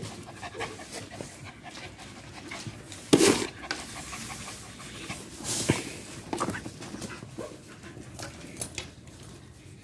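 Dog panting, with a louder noisy burst about three seconds in and another shortly before six seconds.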